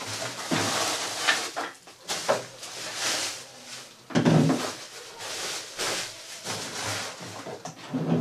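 Plastic packaging rustling and crinkling as parts are unwrapped, with a few knocks of hard plastic parts on a desk. The loudest knock comes about four seconds in.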